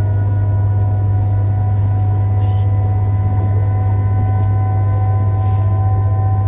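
Eurostar Class 373 train heard from inside the passenger cabin while running: a loud steady low hum with several steady higher whining tones over a rumble of running noise.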